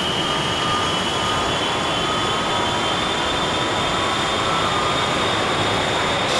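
Boeing 707 jet engines starting up: a steady rushing roar with high whining tones that slowly rise in pitch as the turbines spool up.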